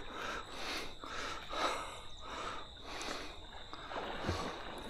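Water splashing and sloshing in soft swishes, about two or three a second, as a hooked Murray cod is played near the surface close to the wading angler. A faint steady high insect drone runs underneath.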